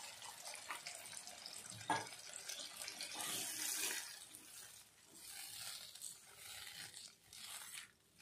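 Water pouring in a steady stream into potato curry in a wok, with a knock about two seconds in, then a spatula stirring and sloshing the thinned curry in uneven strokes.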